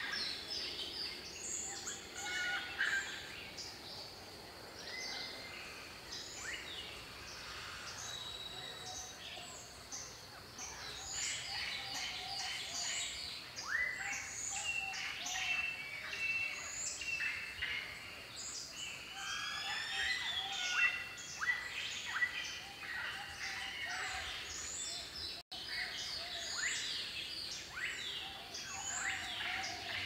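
Many songbirds chirping and whistling at once, short calls and quick pitch sweeps overlapping throughout, with a momentary dropout about three quarters of the way through.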